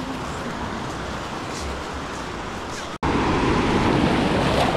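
Steady rush of surf on a sandy beach. After a sudden cut about three seconds in comes louder churning and splashing of seawater around legs wading through the breaking waves in the shallows.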